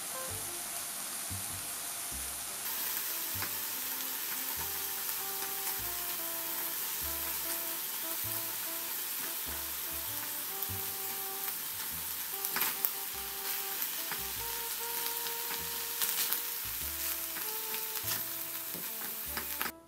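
Minced beef, onion and carrot sizzling in a stainless steel frying pan as tomato paste is stirred through with a silicone spatula, with a few sharper scrapes of the spatula on the pan. The sizzle grows a little louder about two and a half seconds in.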